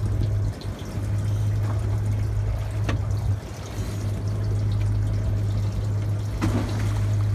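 Boat engine idling with a steady low hum, over water sloshing and lapping against the hull.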